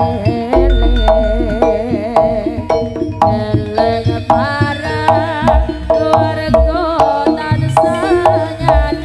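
Jaranan ensemble music: quick hand-drum (kendang) strokes and a few deep low booms under a wavering, vibrato-laden pitched melody.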